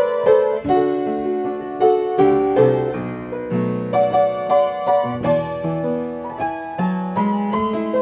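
Upright piano played solo: a melody of struck notes over held bass notes, each note ringing on after it is struck.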